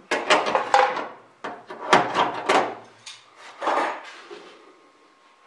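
Clanks and clatter of a steel bucking bar and rivet tools knocking against the aluminium ribs and skin of a riveted aircraft wing, in three short clusters with brief metallic ringing, as the next rivet is set up.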